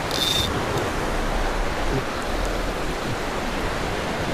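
Ocean surf washing over lava rocks: a steady rush of breaking waves. A brief high-pitched hiss with a thin whistle-like tone comes in right at the start.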